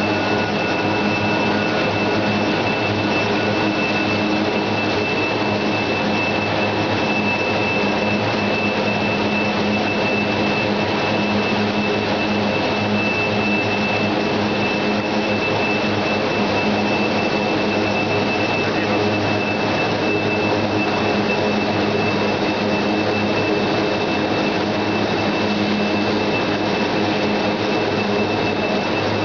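Steady industrial din of a fourdrinier paper machine running: an even rushing noise with a constant low hum and a steady high whine.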